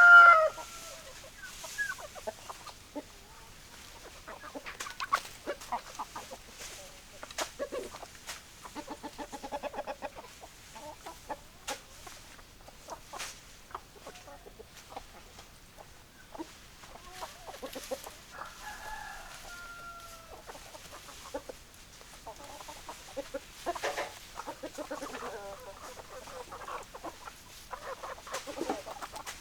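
Chickens: hens clucking in short, repeated calls throughout, with a rooster crowing. The loudest call comes right at the start.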